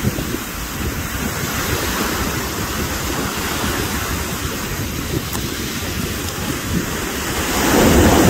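Wind buffeting the microphone over the wash of small waves running up a sandy beach, swelling louder near the end.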